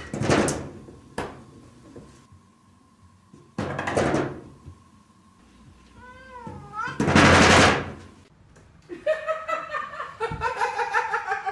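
A cat pawing at a wooden sliding glass door, rattling it in its track in three loud noisy bursts with sharp knocks, and a short wavering meow shortly before the last burst. Near the end a pulsing voice-like sound comes in.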